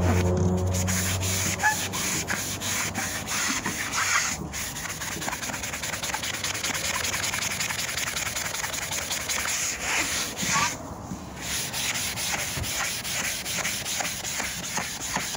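Wet magic eraser (melamine foam) scrubbed rapidly back and forth over vinyl boat-seat upholstery to lift mildew, a rasping rub of many quick strokes. The rubbing breaks off briefly near four seconds and again around eleven seconds in.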